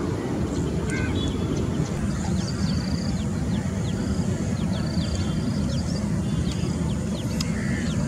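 Outdoor lakeside ambience: a steady low rumble, with birds chirping in many short, quick calls from about two to five seconds in.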